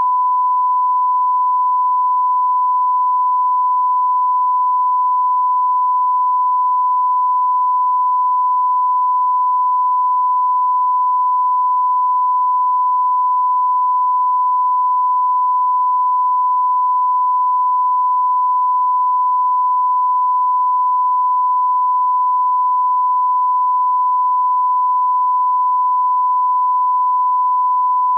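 Broadcast line-up test tone: a steady 1 kHz sine tone at one unchanging pitch and level, played with colour bars as the audio reference signal.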